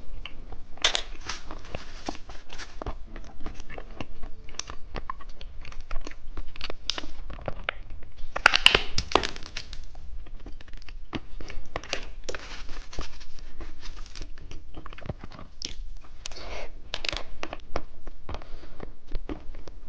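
Close-miked candy eating: crunching and chewing with dense crackling clicks and crinkling packaging. A louder rustle comes about eight and a half seconds in.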